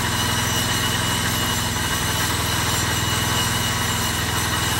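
A heavy engine running steadily at idle, a low, even pulsing hum that does not change.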